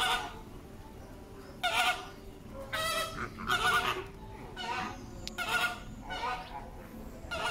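A flock of flamingos honking: a run of short, loud calls, roughly one a second, some of them overlapping.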